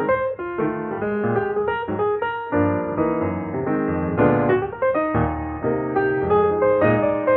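Piano music: a melody of single notes over lower held chords.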